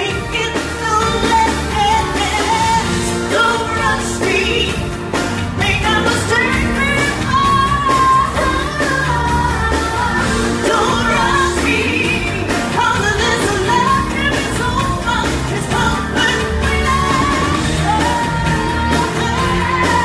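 Live pop band with a woman singing the lead melody over electric bass guitar and keyboards.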